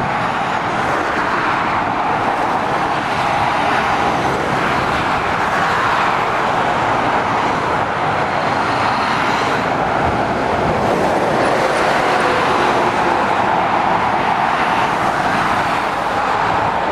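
Steady road traffic noise from lorries and cars driving past on a main road: tyre roar and engine noise, swelling a little as vehicles come by.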